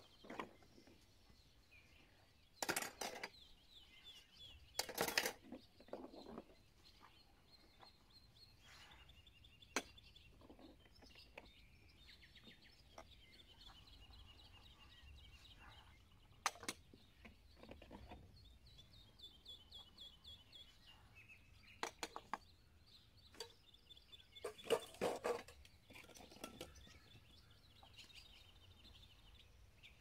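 A songbird singing in long runs of rapid high trills, with a few loud clatters and scrapes of metal pans and dishes being washed and handled.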